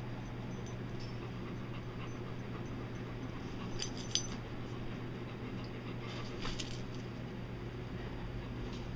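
Metal tags on a dog's collar clinking and jingling briefly a few times, in a cluster about four seconds in and again about six and a half seconds in, over a steady low hum.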